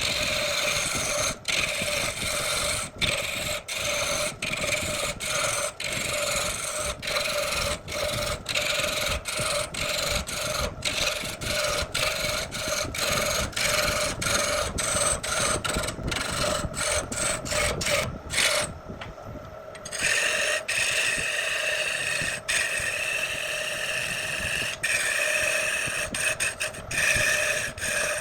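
Wood lathe running while a turning tool scrapes and cuts the spinning wood: a steady pitched whine under a rasping scrape, broken by many very brief drops and going quieter for about a second and a half near two-thirds of the way through.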